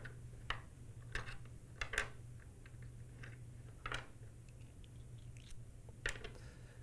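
Metal suppressor baffles clicking and tapping as they are slid apart and set down one by one on a wooden tabletop: a handful of light, irregularly spaced knocks over a faint steady low hum.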